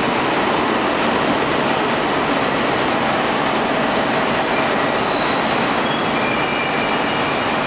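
CRH2B high-speed electric multiple unit rolling past along the platform: a steady, loud rush of wheel-on-rail noise, with faint thin high squeals near the end as the last car goes by.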